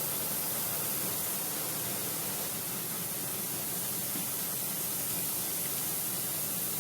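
A steady, even high hiss with no other sound in it.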